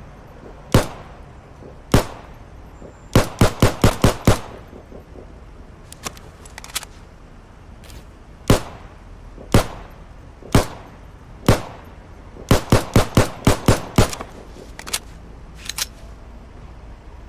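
STI Perfect 10 10mm pistol firing: single shots about a second apart and quick strings of five to seven shots, each a sharp bang with a short tail. A few quieter sharp clicks fall between the strings.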